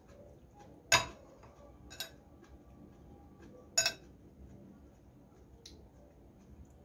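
Metal spoon clinking against a glass bowl three times: about a second in, at two seconds, and near four seconds. The first clink is loudest, and the first and third leave a brief ring.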